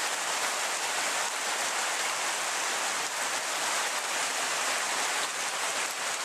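Heavy rain pouring down, mixed with running floodwater: a steady, dense hiss that does not let up.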